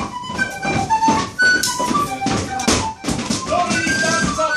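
A tin whistle playing a quick dance tune, one note after another, with frequent sharp knocks from the rapper dancers' stepping.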